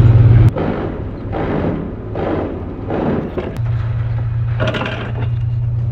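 Leafy branches brushing and rustling against the bucket of an aerial work platform in several short swells. A low engine hum cuts out about half a second in and returns, fainter, about three and a half seconds in.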